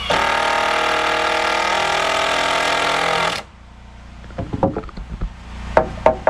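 Cordless drill driving a screw, toenailed at an angle through a floor joist into the ledger; the motor runs steadily for about three seconds with a slight drop in pitch partway, then stops suddenly. A few sharp knocks follow near the end.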